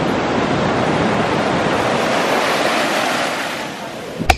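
Ocean surf breaking and washing up the beach, a steady rush that fades slightly near the end. A single sharp click comes just before the end.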